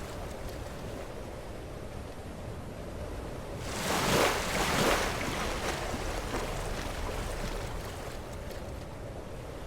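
Sea waves breaking against rocks: a steady wash of surf, with one wave crashing loudly a little before the middle and then draining away.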